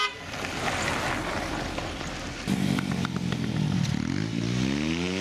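Convoy vehicles driving on a cobbled street: for the first two and a half seconds an even noise of a car going by, then an engine note comes in, holds steady, and rises in pitch near the end as the vehicle speeds up.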